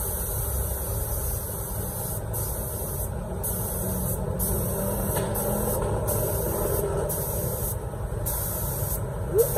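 Anest Iwata gravity-feed spray gun being triggered, hissing as it blows a fine mist from its nozzle. The hiss breaks off briefly several times as the trigger is let go and pulled again, over a steady low rumble.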